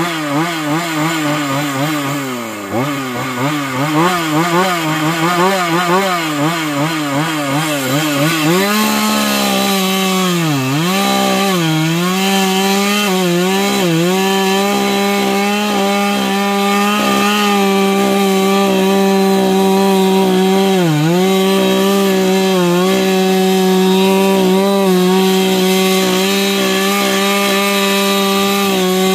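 Two-stroke gas chainsaw. For the first eight seconds or so its engine pitch rises and falls quickly as the throttle is blipped. It is then held at full throttle, cutting through a firewood round and bogging down briefly a few times as the chain bites. The chain is running loose, which the owner says makes it act up in the cut.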